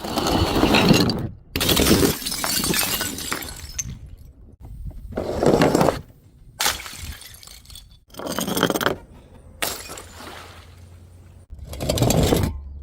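Glass bottles smashing, one after another: about six separate crashes, each ending in an abrupt cut to silence before the next.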